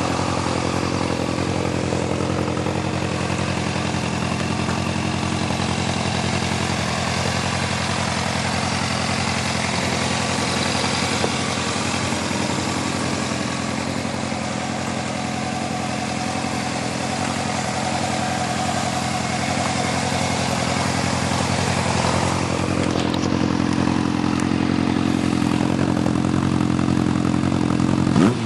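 A Honda CBF 600's inline-four engine, on its stock exhaust, idling steadily.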